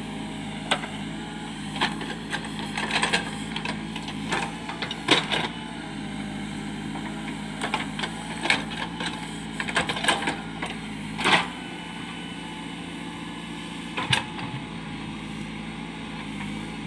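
JCB backhoe loader's diesel engine running steadily while it digs a trench, with irregular sharp knocks and clanks, about a dozen spread through the time, the loudest about eleven seconds in.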